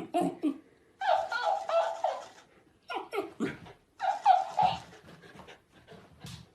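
Puppy making short, high-pitched whines and yelps in several bursts.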